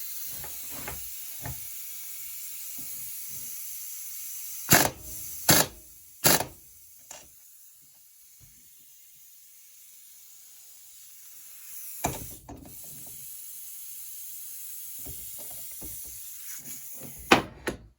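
A few sharp clicks and knocks of metal tools and small parts being handled, three loud ones close together about five seconds in and more near the end, over a steady high hiss.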